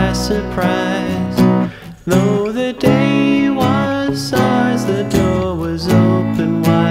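Pop-rock band music: strummed guitar over bass and percussion with a steady beat, with a melodic line weaving above.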